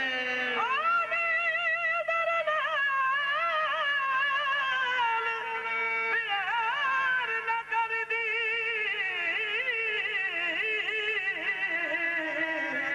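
Qawwali singing: a male qawwal's long ornamented phrases with heavy vibrato and sliding pitch, held on sustained notes over a steady low drone.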